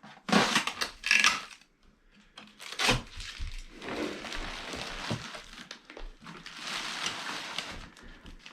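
Packing material being handled around a new 3D printer: a few sharp clatters in the first three seconds, then a long stretch of rustling and crinkling.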